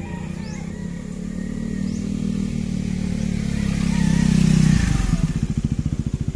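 KTM Duke single-cylinder motorcycle riding past. The engine note builds as it comes closer and is loudest about five seconds in, then becomes an evenly pulsing exhaust beat as the bike pulls away.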